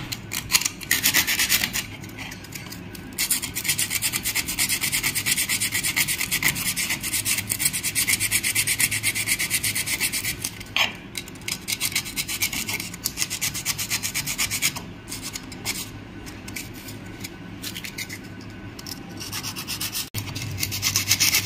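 Sandpaper rubbed quickly back and forth along the edge of an umbrella sewing machine's sheet-steel face plate, rasping in rapid strokes to round off a sharp burr that was cutting the thread. The strokes pause briefly near the start and are lighter through the middle before picking up again near the end.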